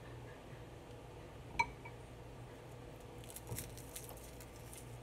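Dried rose buds crackling faintly as they are crumbled between fingers over a ceramic bowl of dried herbs, with one sharp, briefly ringing clink against the bowl about one and a half seconds in.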